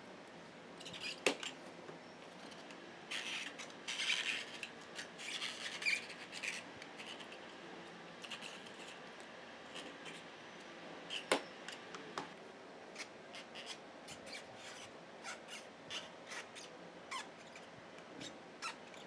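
A blade cutting through rubber sole sheet, trimming the excess new sole off around the edge of a sandal: scratchy slicing strokes in the first several seconds, then a couple of sharp clicks and lighter ticks.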